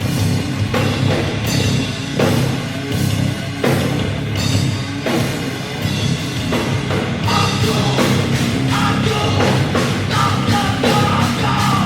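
Rock band playing heavy, distorted rock with a drum kit beating steadily, and a singing voice over it in the second half.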